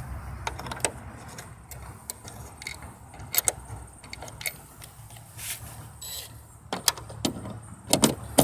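Scattered light metallic clicks and clinks from hand work on the hood strut's mounting bolt as it is loosened and realigned, with a cluster of sharper clicks near the end, over a low steady hum.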